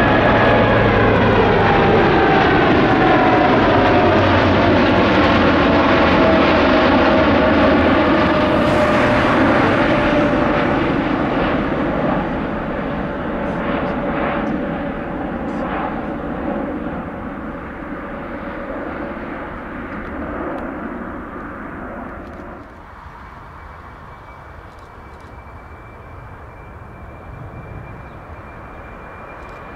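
Boeing 747-8F's four GEnx turbofans at takeoff power as it climbs away overhead: loud jet noise with whining tones that slide down in pitch as it passes, fading as it goes. About 23 s in the sound drops suddenly to a quieter, more distant jet with a steady high whine.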